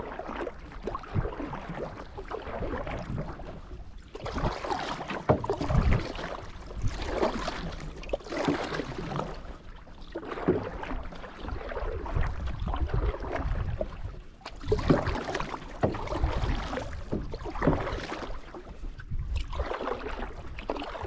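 Canoe paddle strokes in lake water: repeated swishes and splashes as the paddle pulls through the water, swelling and easing every few seconds.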